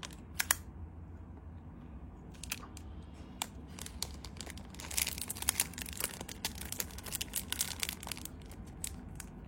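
Crinkling and small clicks of a Zippo lighter and its box being handled: a few sharp clicks early, then a dense run of crackling from about halfway to near the end.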